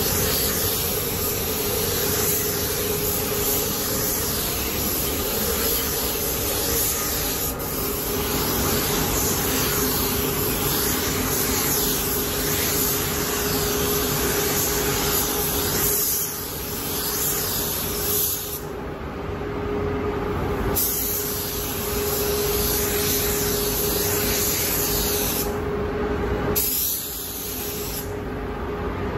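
Paint spray gun hissing as clear coat is sprayed onto a motorcycle fuel tank, over a steady hum; the spraying stops and restarts a few times in the second half.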